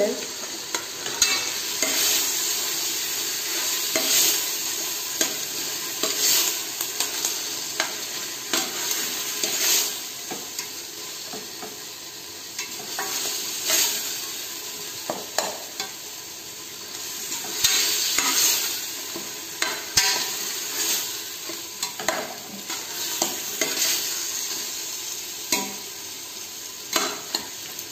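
Onions and tomatoes frying in oil in a steel pressure cooker, sizzling steadily. A slotted spatula stirs and scrapes the pan in irregular strokes every second or two while the onion-tomato masala is sautéed down.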